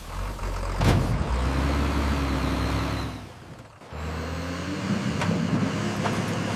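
A motor vehicle's engine running steadily, likely a sound effect for one of the animated vehicles. It fades out briefly about three and a half seconds in, then runs again.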